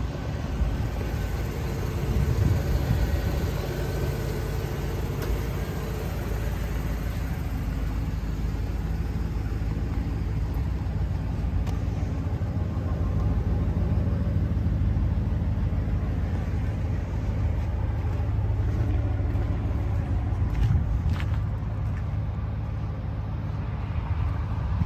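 Steady low rumble of a vehicle engine, with wind on the microphone.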